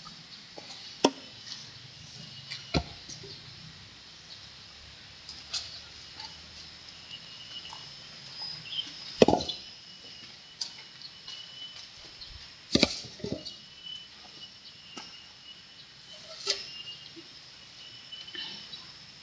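Irregular sharp knocks and thuds of wood being handled, loudest about a second in, near three seconds, about nine seconds in and near thirteen seconds. A thin steady high whine runs underneath.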